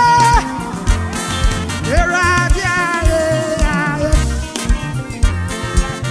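Live Ghanaian gospel band music: a steady beat of drum and bass hits with a gliding melody line over it.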